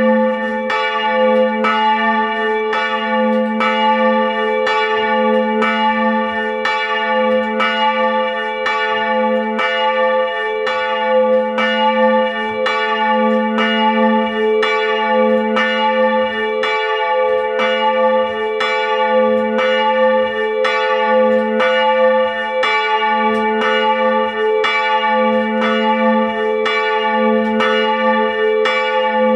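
Two swinging church bells, of about 450 kg and 380 kg, rung together by hand and heard at close range inside the belfry. Clapper strokes come about twice a second in an even stream, each bell's hum ringing on between strokes.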